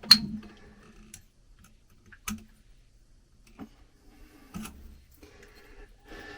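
Scattered sharp clicks and taps of a screwdriver and wire on the terminal screw of a light receptacle, about five in all, the loudest right at the start.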